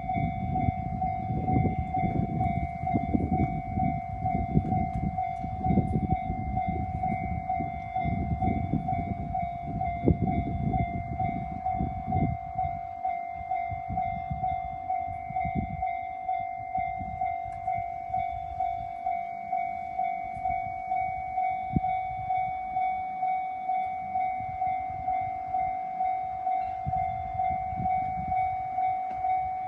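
Japanese railroad crossing warning bell ringing steadily in a regular pulsing rhythm. For the first twelve seconds or so a local passenger train rumbles across with the clatter of its wheels over the rail joints. After that the train sound dies away and the bell rings on alone.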